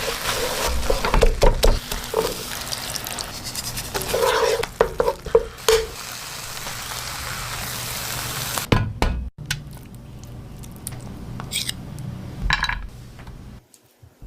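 Egg keema sizzling in a pan as a spatula stirs it, with clicks and scrapes of the utensil against the pan. About nine seconds in, the sizzle cuts off and only a few quieter clinks follow.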